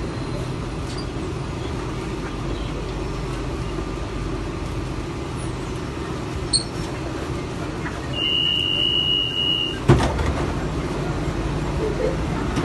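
Metro train car's steady low rumble. About eight seconds in, a single high beep holds for about a second and a half, then a sharp clunk as the car's sliding doors release and open.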